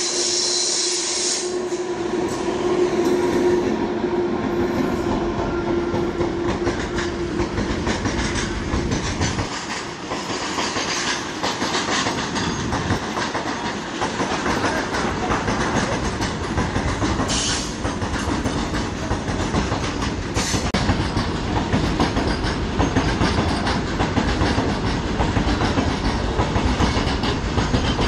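A goods train hauled by a WAG-9HC electric locomotive passes close by. A steady hum sounds for the first eight seconds or so as the locomotive goes by. Then a long rake of loaded covered wagons rolls past with a continuous rumble and clickety-clack of wheels over the rail joints.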